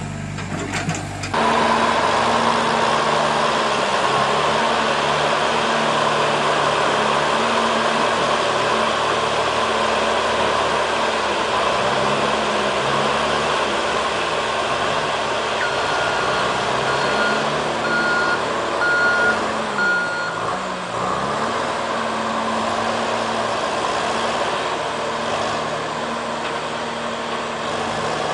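Komatsu PC200 hydraulic excavator's diesel engine running under load as it is driven onto a lowboy trailer, its pitch dipping and recovering several times. A warning beeper sounds five times, about once a second, a little past the middle.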